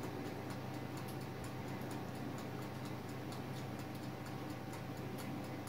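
Faint, irregular light clicks of a metal fork working spinach and minced-meat filling against a glass baking dish, over a steady low hum.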